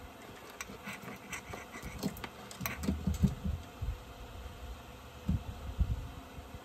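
Steel saw chain clinking and rattling as it is handled by hand, a run of light metallic clicks, with a few dull knocks from handling near the end.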